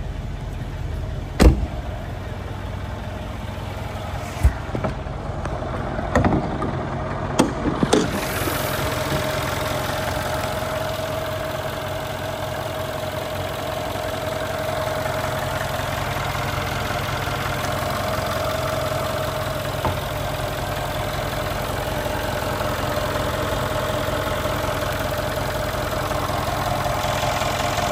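Twin-turbo 5.5-litre V8 of a Mercedes E 63 AMG idling steadily. A few sharp knocks and clicks come in the first eight seconds, the loudest one about a second and a half in.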